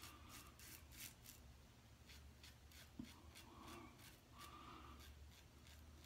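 Safety razor, an iKon 102 with a Bluebird blade, scraping through lathered stubble in short, quick strokes, faint, a few rasps a second, with one sharper tick about three seconds in.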